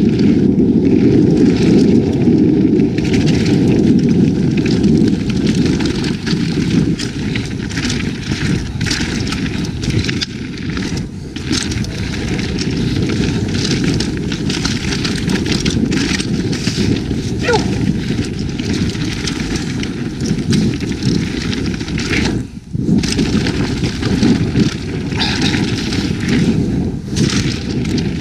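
An Evil Calling mountain bike riding fast down a trail, with wind rumbling on the camera's microphone and frequent clicks, knocks and rattles from the tyres and bike over rough ground. The noise drops briefly about twenty-two seconds in.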